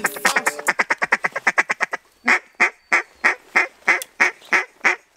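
Mallard-type duck quacking: a fast chatter of short quacks, about eight a second, for the first two seconds, then a slower, louder string of single quacks, about three a second.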